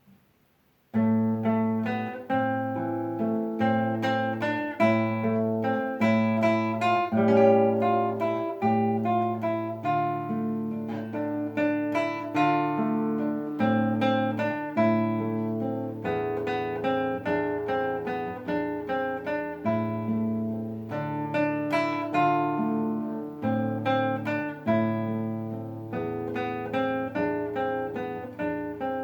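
Solo acoustic guitar playing a plucked piece, with bass notes sounding in a steady pulse under a melody, starting about a second in.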